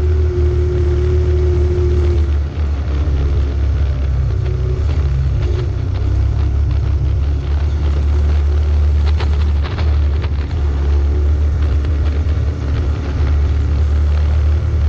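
Off-road vehicle engine running steadily under load as it climbs a rocky dirt trail, with a cluster of sharp knocks about nine to ten seconds in.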